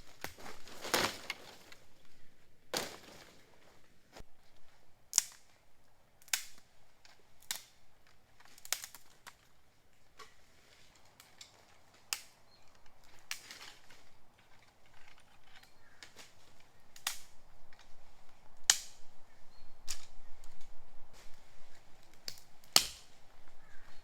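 Wood campfire crackling, with irregular sharp pops about every second or two and a few longer crackling bursts.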